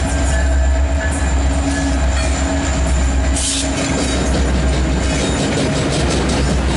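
Illinois Central EMD SD70 diesel locomotives passing close by, their two-stroke 16-cylinder EMD 710 engines running with a strong steady low rumble. A short hiss comes about halfway through, and steel wheels click repeatedly over the rail joints toward the end.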